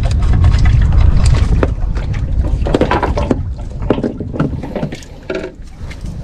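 Water splashing and slapping against a small boat, over a heavy low rumble of wind on the microphone, with scattered knocks and clatter. The rumble eases about halfway through.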